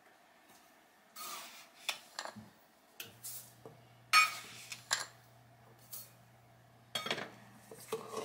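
Clinks and knocks of a cup and utensils against a stainless steel pot as a cup of sugar is tipped into cooked strawberries, about eight short strikes spread out, the loudest about four seconds in.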